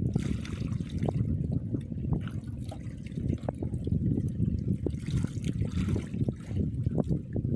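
Water sloshing and trickling, with small irregular splashes and ticks.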